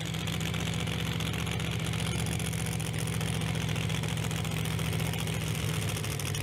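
Engine of a modified off-road sand-drag truck idling steadily at the start line, an even low rumble.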